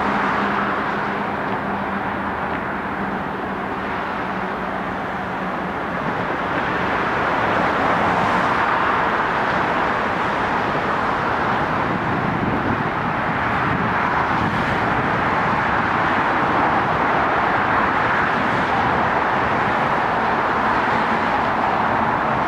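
Steady noise of Seoul Metro Line 2 electric trains running across a railway bridge, heard from a distance and blended with city traffic. It dips slightly a few seconds in and swells again from about seven seconds in as the next train approaches.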